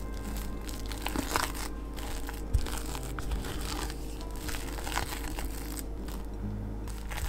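A spatula folding whipped cream into cream cheese in a glass bowl: irregular soft scraping and squishing strokes against the glass.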